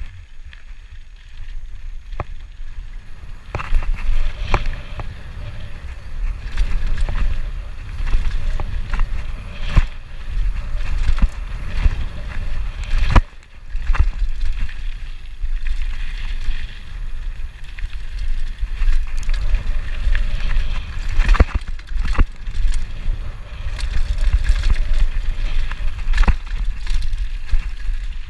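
Norco Shore 2 mountain bike riding fast down a dirt and loose-stone trail. The tyres crunch over gravel and the bike rattles and knocks over bumps, under a low buffeting rumble of wind on the chest-mounted camera's microphone. It gets louder a few seconds in as the bike picks up speed.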